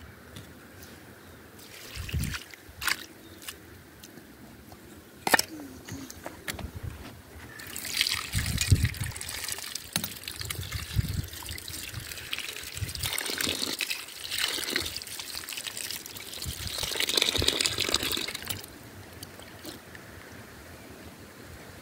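Tap water from a tank runs and splashes into a metal bowl of prickly pear fruits while they are rubbed clean by hand, for about ten seconds before the tap stops. A couple of sharp knocks come before the water starts.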